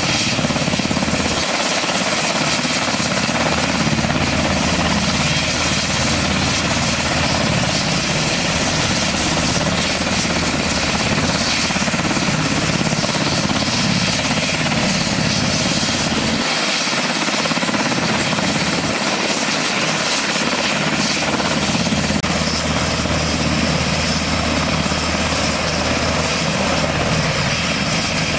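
UH-60 Black Hawk helicopters with their twin turboshaft engines running and main rotors turning: a steady, loud rush of rotor and turbine noise with a faint high whine.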